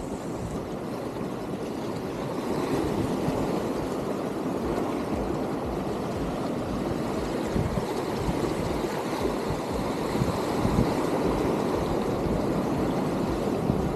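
Wind buffeting the microphone in uneven low rumbles over a steady wash of small waves breaking against the rocks of a stone jetty.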